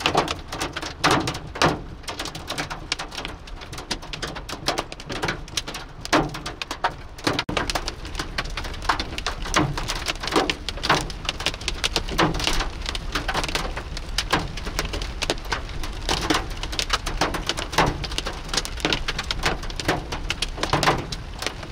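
Very large hailstones pelting a moving vehicle in a dense, irregular patter, with louder single impacts every second or two, over a steady low road rumble.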